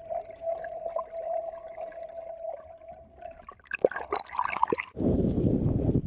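Muffled underwater sound through a camera housing: a steady thin whine with scattered faint clicks, then a quick flurry of sharp clicks and knocks. About five seconds in it cuts suddenly to loud rushing water and wind noise above the surface as the hooked shark thrashes and splashes against the boat's side.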